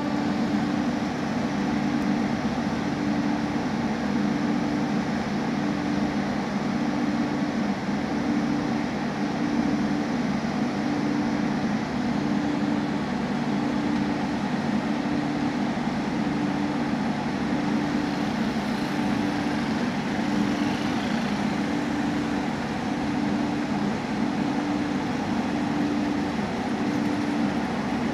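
A train's steady mechanical rumble, with a low throb that repeats evenly about once every second or so.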